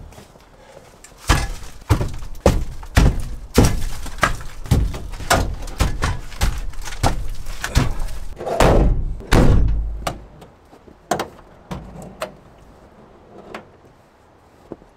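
Cut pine log rounds being loaded and stacked in the cargo area of a Ford E350 van: a run of thunks and knocks, one or two a second, with the heaviest thuds about nine seconds in, thinning to a few scattered knocks afterwards.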